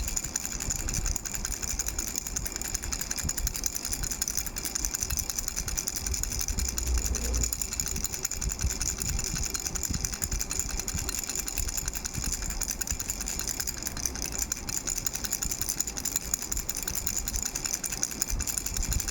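A rattle shaken in a fast, even, unbroken rattle, bright and high-pitched.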